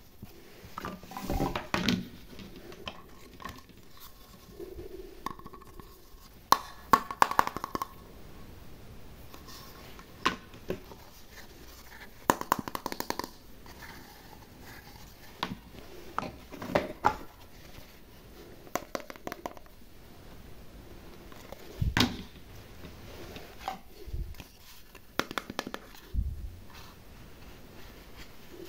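Hard plastic toy food pieces being handled: clicking, knocking and rattling against each other and against a plastic tray, in scattered bursts of taps with short pauses between them.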